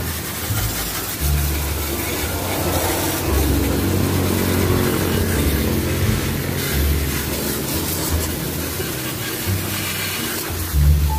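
Pressure washer spraying water through a brass nozzle into a car's empty tail-light cavity: a steady hiss of spray over the low hum of the washer's motor, which shifts in pitch every second or two.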